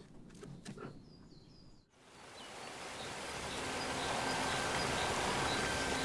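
Forest ambience: after a brief drop to silence, a steady outdoor hiss swells up over a few seconds, with faint bird chirps, and a thin steady high tone comes in near the end.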